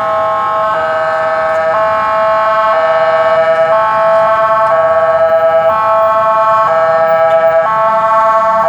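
Emergency vehicle siren sounding a two-tone hi-lo pattern, switching pitch about once a second, growing slightly louder about three seconds in.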